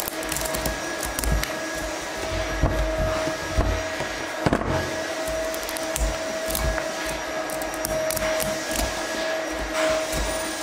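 A small knife cutting and scraping the rind off a pumpkin in short strokes, with scattered clicks and low knocks, over a steady hum.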